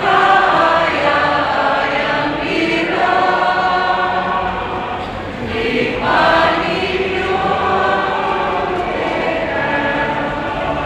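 Choir singing a church hymn in long held notes, with brief breaks between phrases about two and five seconds in, in the echoing space of a cathedral.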